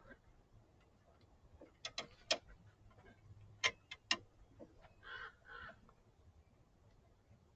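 A handful of sharp metallic clicks and taps from hand tools and metal fittings being handled, in two small clusters, followed by two short rustles about five seconds in.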